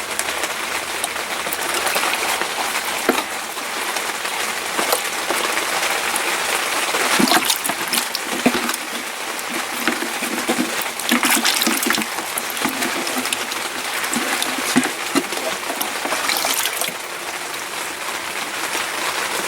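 Water splashing and trickling as clogged dish-scrubby filter pads from a small pond solids filter are handled and rinsed in a bucket of water, with scattered light knocks.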